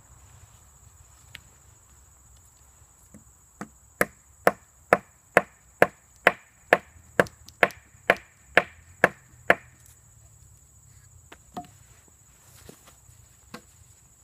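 Wood on wood: a thick stick used as a mallet strikes a wooden crosspiece about fourteen times in a steady run of roughly two sharp knocks a second. A few lighter taps follow near the end.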